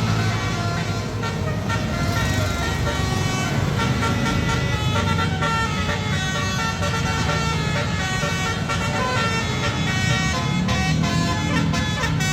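Bus 'telolet' basuri musical horn playing a tune: several loud, steady horn notes sounding together and stepping from pitch to pitch, one after another throughout.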